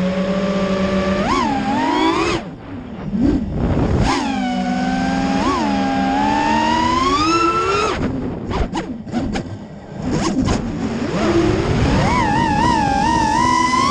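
FPV racing quadcopter's brushless motors and propellers whining, the pitch rising and falling sharply with the throttle. The whine drops away twice as the throttle is cut, about two and a half seconds in and again around eight seconds in, and it wavers quickly near the end as the drone banks.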